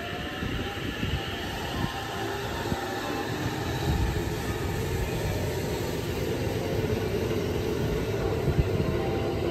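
JR West 683 series 4000-subseries electric limited express pulling away and gathering speed past the platform. The motors give a whine that glides upward in pitch, over a rumble of wheels on rail that grows steadily louder.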